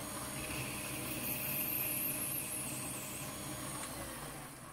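Mini lathe running while the tool faces the end of a Delrin (acetal) plastic bushing, with a thin high whine from the cut through the middle. The lathe winds down near the end.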